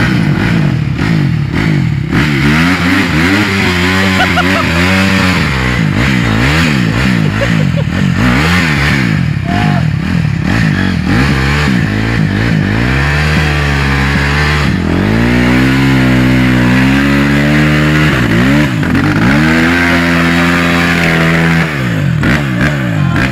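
Dirt bike engine revving hard while the bike is bogged down in deep mud with its rear wheel spinning: quick up-and-down blips of the throttle, then held at high revs for a few seconds at a time, twice, as the bike is pushed to free it.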